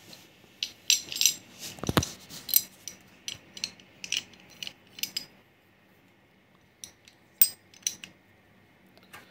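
Lavaal 8400 two-point locking window handle's plastic housing and gear parts clicking and clacking as they are worked and fitted by hand. There is a quick run of sharp clicks with a duller knock about two seconds in, a pause, then a few more clicks.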